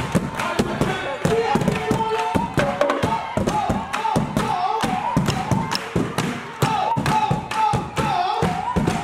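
Marching drumline playing: bass drums and snare drums striking a fast, driving pattern of hits, with a voice sounding over the drumming.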